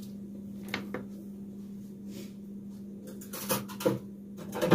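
A canister being handled while she tries to open its sealed cap: scattered clicks and light knocks, with a louder knock near the end, over a steady low hum.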